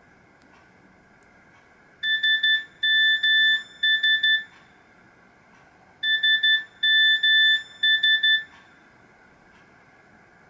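A Nokia 7310 mobile phone playing a beeping alert tone: a quick run of beeps at one high pitch, played twice, about four seconds apart.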